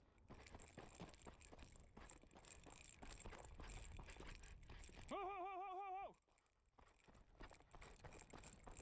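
Footsteps crunching over rocky gravel as a person walks briskly. About five seconds in, a louder wavering pitched call lasts about a second, and it starts again right at the end.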